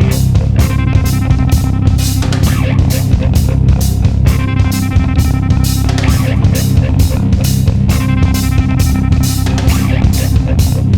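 Rock music: electric guitar playing a repeating riff over bass guitar and a steady drum-kit beat.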